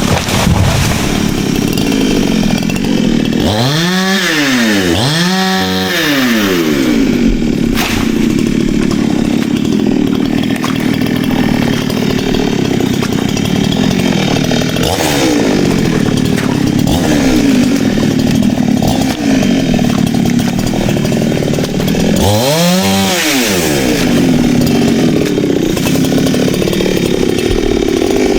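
Two-stroke chainsaw running hard and cutting wood. The engine's pitch swings up and back down briefly three times: twice close together about four to six seconds in, and once more near the end.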